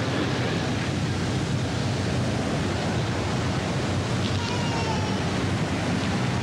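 Steady rushing background noise with no impacts, and a faint voice briefly about two-thirds of the way through.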